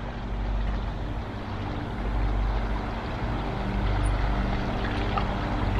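A motor running steadily with a low drone, with no change in speed.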